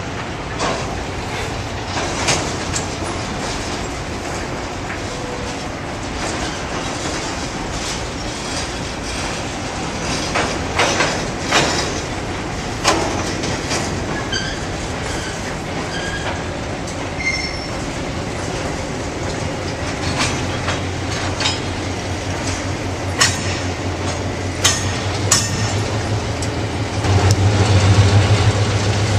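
Freight cars rolling slowly over a steel swing bridge, wheels clanking irregularly over the rail joints with a few brief wheel squeals in the middle. Then the EMD SW8 switcher's eight-cylinder 567 diesel drones in, growing louder as the locomotive comes close and loudest near the end.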